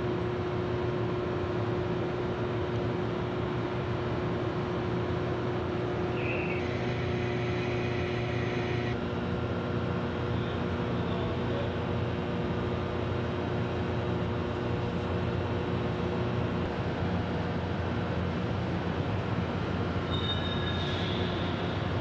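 Overhead crane hoisting a space shuttle external tank: a steady mechanical hum with several held tones. A high squealing tone comes in for a couple of seconds about seven seconds in, and again briefly near the end.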